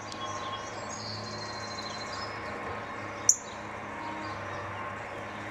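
Female northern cardinal giving a single sharp chip call about three seconds in, scolding at a disturbance near her nest. Other birds call faintly behind it.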